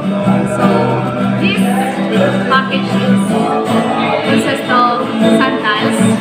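Background music: a song with a sung vocal line over steady accompaniment.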